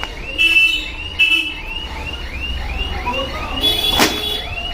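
An electronic alarm chirp repeating evenly about three times a second. Two short louder squeals come about half a second and just over a second in, and a sharp click about four seconds in.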